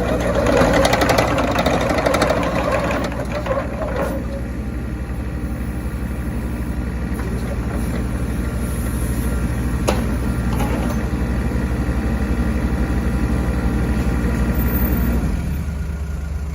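Diesel engine of a Kubota U-20-3S mini excavator running steadily at idle, louder and busier for the first few seconds, with a sharp click at about four seconds and again at about ten seconds.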